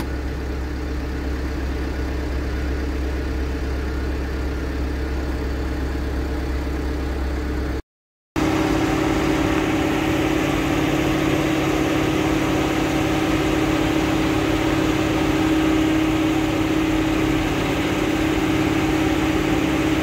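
Engine idling with a steady hum. It cuts to silence for about half a second about eight seconds in, then runs on a little louder.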